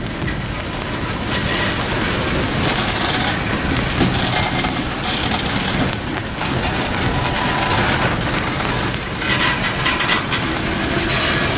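Loaded coal cars of a freight train rolling past on steel rails: a steady rumble and clatter of wheels on track, with faint brief high squeals a few times.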